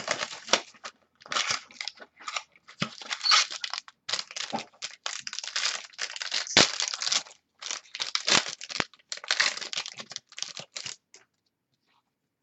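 Foil wrapper of a baseball card pack being torn open and crinkled by hand, in irregular bursts that stop about a second before the end.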